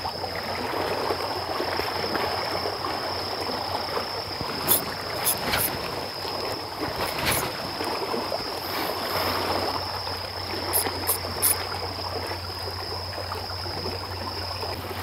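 Small sea waves washing against the rocks of the shore in a steady wash of water, with a few short faint clicks.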